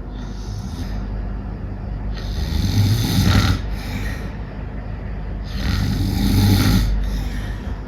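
A person snoring loudly: two long snores, the first about two seconds in and the second about three and a half seconds later.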